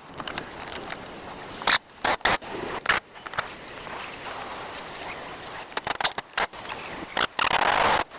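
Tools and parts scraping and clattering during wheel hub work: a string of short scrapes and clicks, then a longer, louder scrape near the end.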